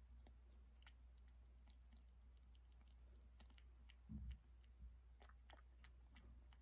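A kitten eating wet cat food from a ceramic bowl: faint, quick chewing and lapping clicks, with a soft low thump about four seconds in.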